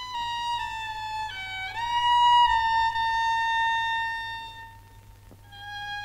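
Solo violin playing a slow melody on the soundtrack: a few stepping notes, a rising slide into a long held note that fades away, then a new phrase beginning near the end.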